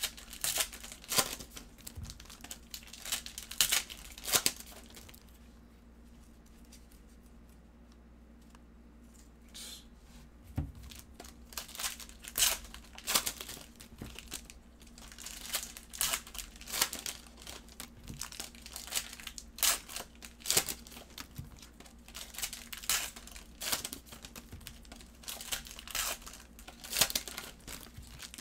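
Foil trading-card pack wrappers (Prizm basketball hanger packs) crinkling and tearing open, with cards handled, in quick irregular crackles. A quieter stretch of about five seconds is followed by a soft low thump, and then the crinkling resumes.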